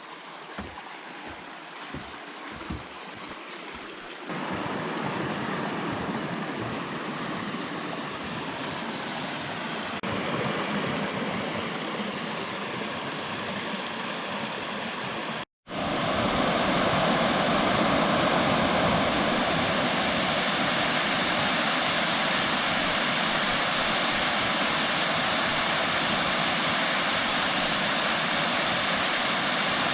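Running water in a few successive takes. First a smaller creek trickling, with scattered drips and plinks. Then a fuller rush of flowing stream water, and after a sudden break about halfway, the louder, steady rush of a waterfall.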